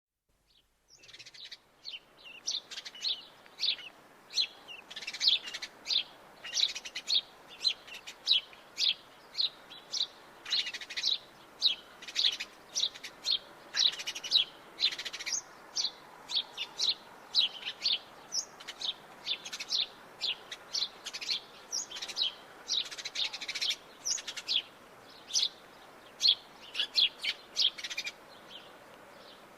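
House sparrows chirping: a dense, continuous run of short, sharp chirps, starting about a second in after a brief silence.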